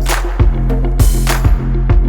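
Background R&B music with a steady drum beat over held bass notes, no singing in this stretch.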